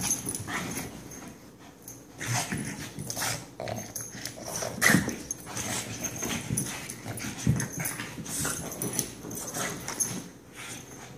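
A Shih Tzu and a Boston terrier play-fighting: a string of short, irregular dog vocalisations and scuffles, the loudest about five seconds in.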